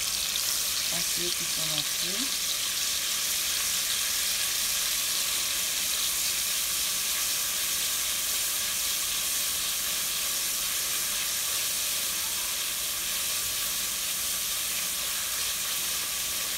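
Oil and seasoning frying in a metal pot, with a steady sizzle while a spoon stirs it.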